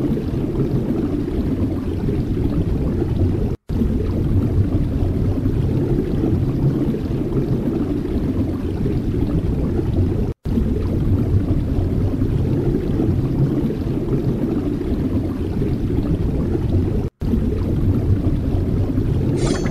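Wind buffeting the microphone: a steady low rumble, broken by three brief silent gaps.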